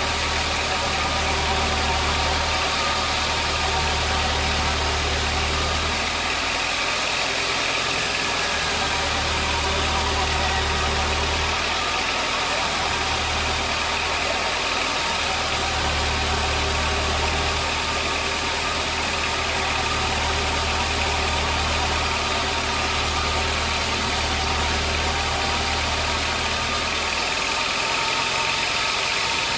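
Sawmill machinery running steadily, with a low hum that drops out briefly a few times.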